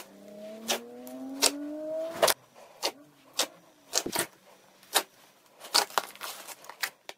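Thick glossy slime being squeezed: air pressed out through it makes a squeaky whine that climbs slowly in pitch and ends in a loud pop a little over two seconds in. After that come a string of sharp, wet pops and clicks as fingers poke and squish the slime.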